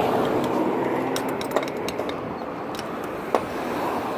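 Steady road traffic noise with sharp clicks from a crosswalk pedestrian signal, two loud ones about one and a half and three and a half seconds in and fainter ticks between them.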